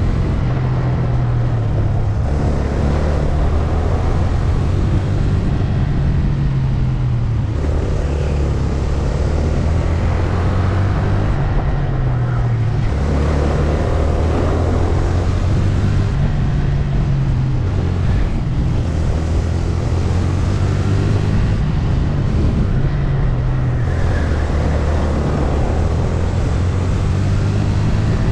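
Engine of a VT250 rental kart heard onboard at speed, its pitch climbing and falling again and again as it accelerates out of corners and backs off into them.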